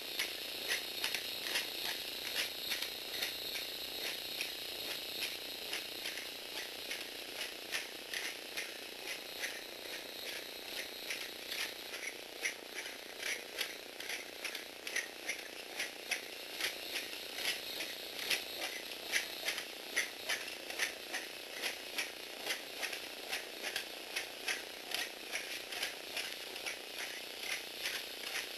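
Lego Technic Power Functions motor driving a plastic gear train and walking legs: a steady high whine with regular clicking, about two to three clicks a second.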